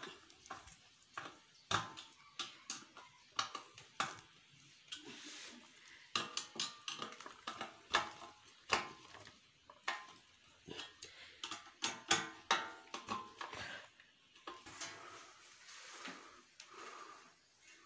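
A screwdriver tightening the screws that fix the blades to a ceiling fan's motor housing: irregular metallic clicks, small knocks and scrapes of metal on metal.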